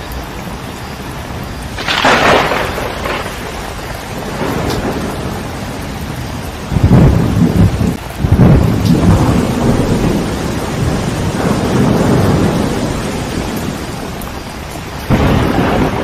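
Thunderstorm: steady heavy rain with thunder. A sharp crack comes about two seconds in, a long low rolling rumble fills the middle, and another crack comes near the end.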